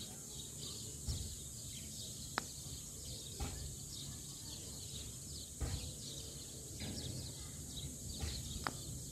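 Faint background room and outdoor ambience: a steady high hiss with frequent faint chirping. A few soft low knocks come from handling, and two sharp clicks sound, one about two and a half seconds in and one near the end.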